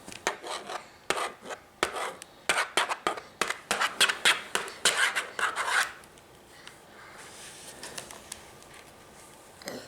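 Rapid scratching and rubbing strokes across a surface, several a second, for about six seconds, then they stop.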